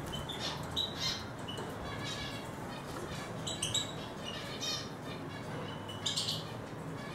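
Eurasian siskin song: high twittering chirps and short buzzy trills, coming in quick phrases several times.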